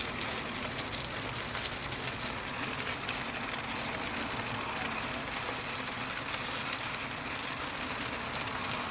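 Potstickers sizzling steadily in a large frying pan: a continuous hiss full of fine crackles from oil and water spitting under the dumplings.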